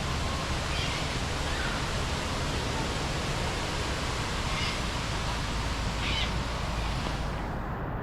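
Steady hiss of falling rain, with a few short bird calls now and then.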